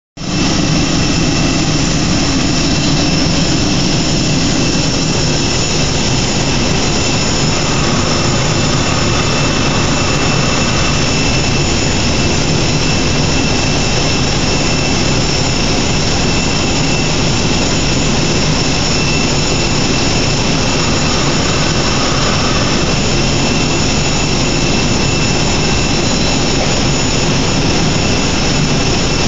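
Airbus A320's jet turbine running at the gate: a loud, steady high whine over a low rumble, unchanging throughout.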